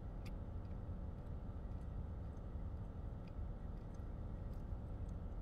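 Steady low hum inside a parked car, with faint, scattered mouth clicks from a man chewing a mouthful of meat.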